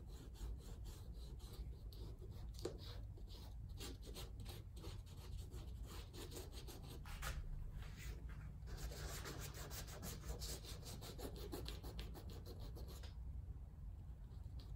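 Huberd's shoe grease being rubbed into a leather hiking boot along the seam between the upper and the welt: faint, quick, repeated rubbing strokes that thin out near the end.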